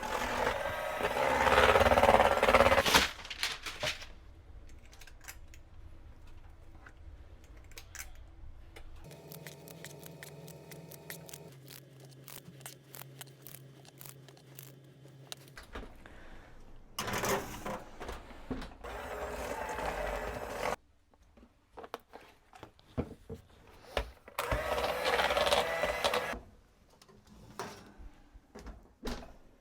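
Electric hand mixer beating cake batter in a bowl, running in several separate stretches, loudest in the first few seconds.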